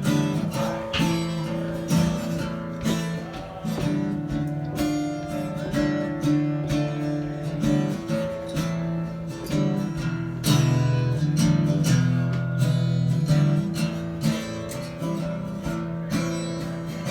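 Acoustic guitar strummed in a steady rhythm, an instrumental passage before the singing starts.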